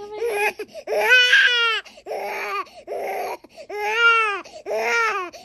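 Infant crying hard while being vaccinated: a run of loud wails of about a second each, each rising and falling in pitch, with short gasps for breath between them.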